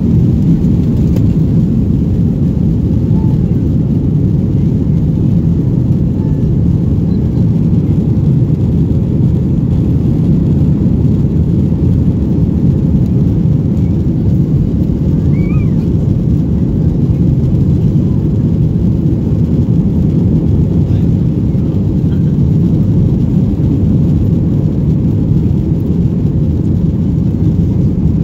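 Cabin noise of a Southwest Airlines Boeing 737 taking off and climbing: a steady, loud, low roar of the jet engines at climb power and the rushing air, heard inside the cabin by the wing.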